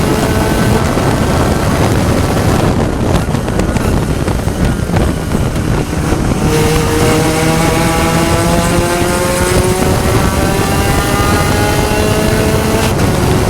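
Spec Racer Ford Gen3 race car engine at racing speed, with wind noise. The driver comes off the throttle about three seconds in, with a few knocks as the car brakes and shifts down. About three seconds later he is back on the power, and the revs climb steadily to a brief dip near the end, like an upshift.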